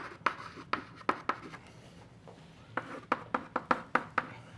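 Chalk tapping and scratching on a blackboard as words and a formula are written: a quick run of sharp taps and strokes, a pause of about a second and a half, then another run.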